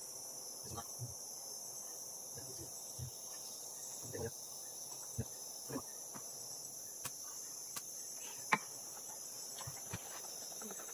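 Steady high-pitched chorus of insects, with scattered faint knocks and clicks.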